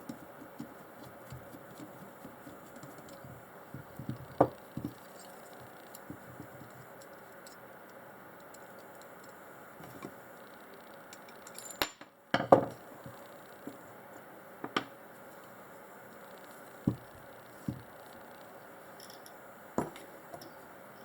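Scattered clicks, clinks and light knocks of hand tools and small metal carburetor parts being handled while an outboard carburetor is taken apart. The loudest knock comes about twelve and a half seconds in.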